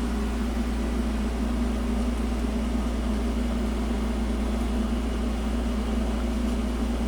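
Steady low electrical hum with an even fan-like whir, unchanging throughout.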